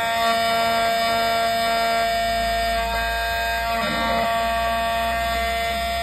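Key-cutting machine's spindle motor running with a steady high whine as its milling cutter cuts a groove into a metal car key blade.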